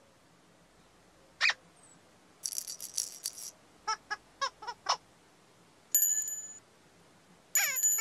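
Whimsical children's-TV sound effects for a character's movements: a single squeak about a second and a half in, then a burst of high tinkling, then a quick run of five short squeaky toots. Near the end come a bright bell-like ding and a chime with falling tones.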